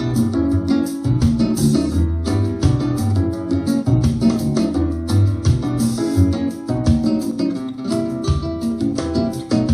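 Instrumental music with plucked guitar over a steady bass line and beat, played back through a speaker.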